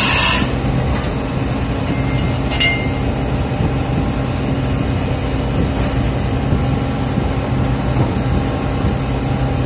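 The end of the power hammer's loud burst cuts off about half a second in. A steady low machinery drone follows, with a faint click a little past two seconds in.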